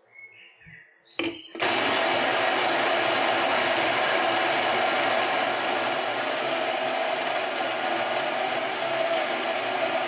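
Electric coffee grinder switched on with a click about a second in, then grinding coffee beans steadily into an espresso portafilter.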